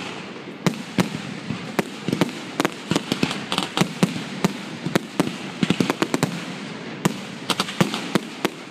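Fireworks finale barrage: mortar-launched aerial shells bursting in rapid, irregular bangs, several a second and often in clusters, over a steady noise of crackle.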